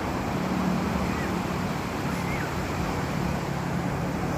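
Steady rushing noise of wind and surf at the shore, with a low steady hum underneath.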